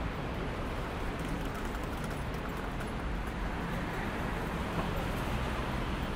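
City street ambience: a steady hum of traffic and urban activity, with a few faint ticks between one and three seconds in.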